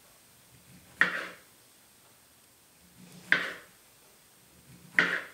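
Knife cutting through a peeled kiwi and striking a plastic cutting board: three sharp knocks, one per slice, about two seconds apart.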